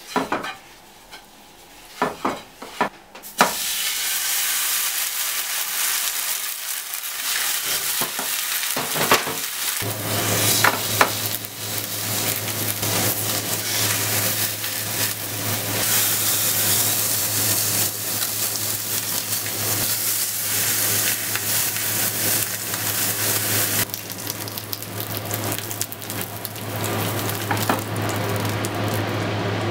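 String-tied pork sizzling loudly as it sears in sesame oil in a pressure cooker pot, turned now and then with tongs. A few knocks come first, and the sizzle starts about three seconds in as the meat goes into the hot oil.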